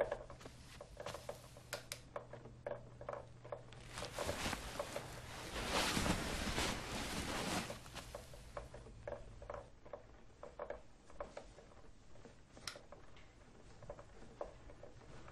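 Irregular soft scratching and clicking inside the walls of a wooden house, the sound of termites eating into the timber, with a louder rustling swell about four to eight seconds in.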